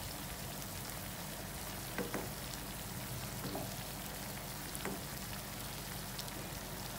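Marinated chicken pieces sizzling steadily in hot butter and sunflower oil in a frying pan, at a light first fry. A few sharp pops and clicks stand out over the sizzle.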